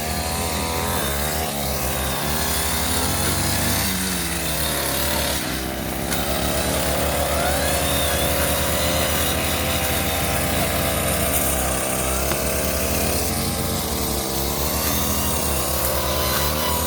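Brush cutter engine running continuously while clearing undergrowth, its speed rising and falling.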